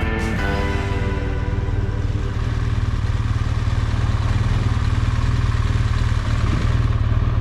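Motorcycle riding at a steady speed: a constant low engine drone under an even rush of wind noise, with no change in speed or gear. The tail of a music track fades out in the first half second.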